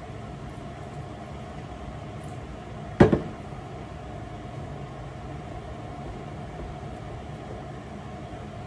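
Steady mechanical hum with one sharp knock about three seconds in: a plastic jug set down on the countertop.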